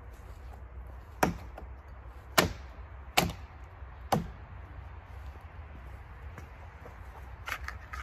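Hatchet chopping into dead pine branches: four sharp chops in the first half, then a few lighter knocks near the end.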